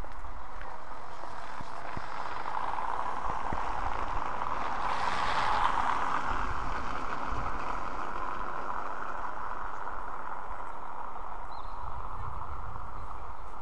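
Steady outdoor city street noise, a rushing hum that swells about five seconds in and then settles, with a low rumble underneath.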